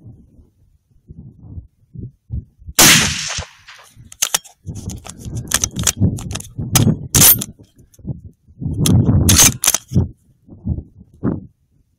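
Shots from a .308 Winchester Ruger American Predator bolt-action rifle: a loud crack about three seconds in with a short echo, then further shots over the following seconds.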